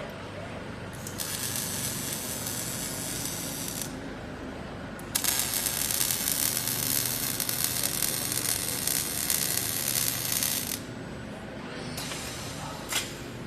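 Welding arc crackling and hissing in two runs, one of about three seconds and a longer one of about five to six seconds, over a steady low machine hum. A few short ticks come near the end.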